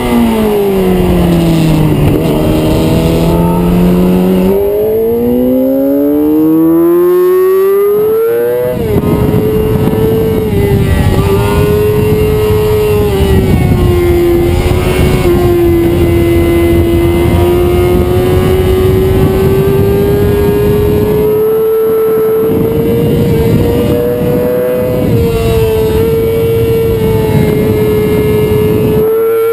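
Onboard sound of a 2006 Yamaha YZF-R6's inline-four engine on track. The engine note falls as the bike slows, stays low for a couple of seconds, then climbs steeply under hard acceleration. There is an upshift about eight and a half seconds in, after which it holds a high, steady note through a fast stretch, easing briefly a few times.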